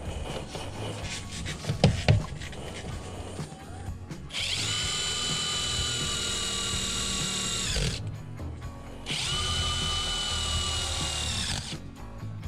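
Cordless drill run twice, for about three and a half seconds and then about two and a half, with a steady whine that spins up and winds down each time, working on sheet-metal ductwork. Light clicks and knocks of handling come before it.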